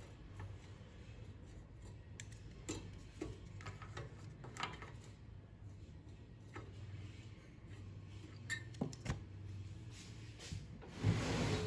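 Light clicks and taps of small metal and plastic parts being handled while fitting a homemade CPU cooler, over a steady low hum, with a brief louder rustle near the end.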